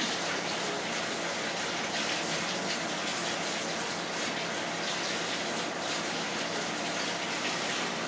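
A steady rushing noise with a faint hum under it, even in level throughout.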